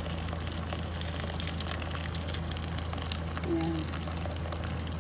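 A steady stream of water pouring and splashing into a large cooking pot of lamb in tomato and spice sauce, adding the cooking water before it is brought to the boil. A steady low hum runs beneath.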